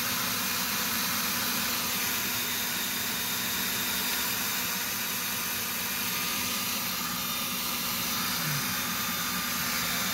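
Power drill running steadily at constant speed, turning the drive of a 1994–2004 Mustang power seat track so the stuck rail winds forward along its screw.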